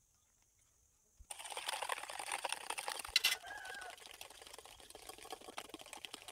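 Rapid clicking and rattling of a metal utensil beating egg whites, sugar and oil in a steel bowl, starting about a second in after near silence. This is the hand-beating that makes the cake batter spongy.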